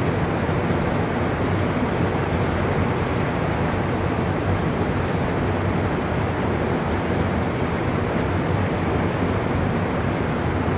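Floodwater rushing, a steady, even noise of moving water that holds without a break.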